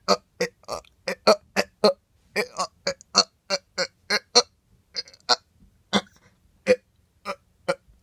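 A person making a quick, uneven string of short, clipped vocal noises with the mouth, about twenty in all. They come close together at first and grow more spaced out in the second half.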